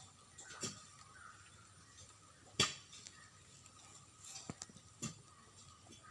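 Low background hiss with a few scattered sharp clicks and knocks, the loudest about two and a half seconds in.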